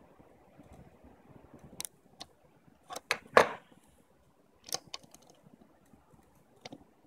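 Small hard curtain-track fittings and screws being handled, giving a few sharp clicks and light clatter; the loudest click comes about three and a half seconds in.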